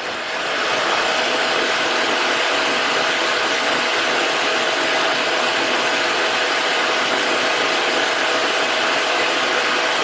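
A steady fan-like rushing noise with a faint steady hum in it. It comes up within the first second and then holds level.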